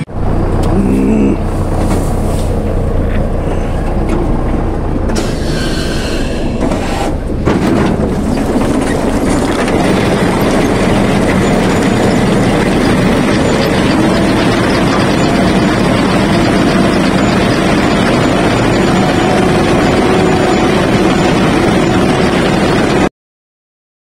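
Potato harvester running: the loud, steady clatter of its rod-web conveyors carrying potatoes, over a low drone. It cuts off suddenly near the end.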